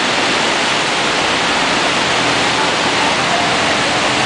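Steady rush of a swollen river near flood stage running through whitewater rapids.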